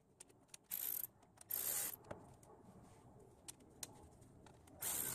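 Ratchet wrench clicking in several short rasping bursts, with single sharp clicks between them: two bursts in the first two seconds and another pair near the end.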